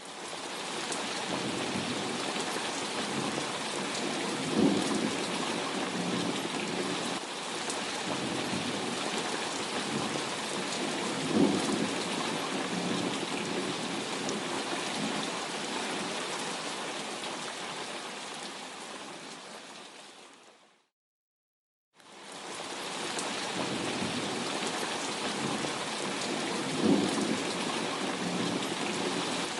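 Steady heavy rain with three brief louder rumbles of thunder. The rain fades out after about twenty seconds, goes silent for about a second, then fades back in, as where a sound-effect loop is joined.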